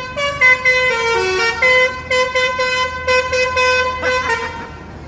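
Bus 'telolet' musical air horn playing a tune: a run of short repeated notes, with a few lower notes stepping down about a second in, then more quick repeats of the same note, stopping about four seconds in.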